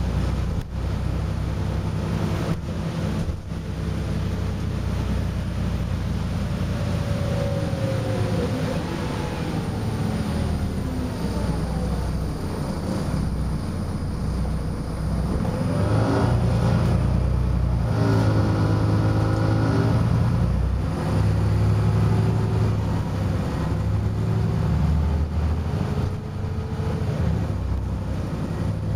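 Volvo B7RLE bus's diesel engine and drivetrain heard from inside the saloon: a constant low rumble with an engine whine that falls in pitch as the bus slows, then rises and holds as it picks up speed again. A few sharp knocks and rattles come near the start.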